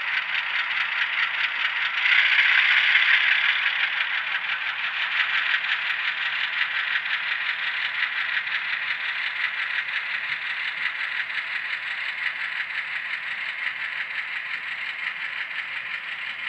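HO-scale model freight cars rolling past on the track, wheels clattering and rattling steadily. Loudest about two seconds in, then slowly fading.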